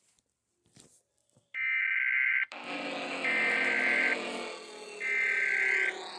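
Three bursts of an Emergency Alert System SAME header, the buzzy two-tone digital data squawk, each about a second long with short gaps between. A noisy low drone comes in under them about two and a half seconds in.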